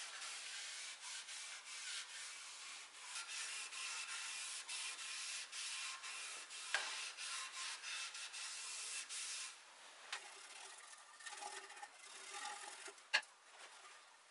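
Cloth rubbing finish onto a wooden chair rail in quick scratchy back-and-forth strokes, two or three a second. About ten seconds in it gives way to quieter, softer brushing, and two sharp clicks stand out, one a third of the way in and one near the end.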